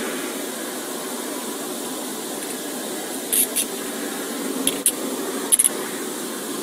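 Steady hiss of a car's ventilation with, from about halfway in, several short sharp metallic clicks in quick pairs: handcuffs ratcheting shut, two pairs being put on one person.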